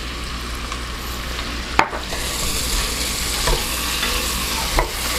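Diced onion, carrots and celery sautéing in melted butter in a stainless steel pot, sizzling steadily while being stirred with a wooden spatula. The sizzle grows louder about two seconds in, and the spatula knocks against the pot three times.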